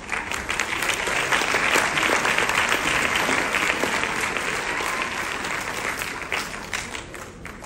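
Audience applauding, a dense patter of many hands that rises quickly at the start and dies away near the end.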